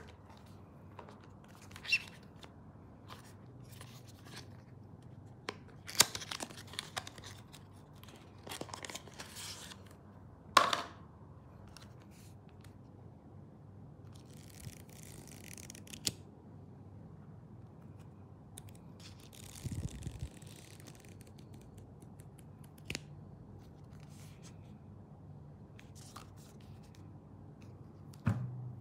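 Packaging being handled during an unboxing: scattered clicks and taps, with two stretches of soft tearing and rustling in the middle.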